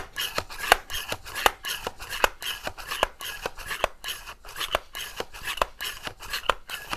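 Excellent C1 pump air rifle being charged: its metal pump handle worked quickly in and out, a steady rhythm of short rasping clicks at about three to four strokes a second.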